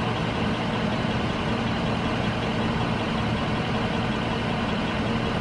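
A motor vehicle's engine idling steadily, a low even hum.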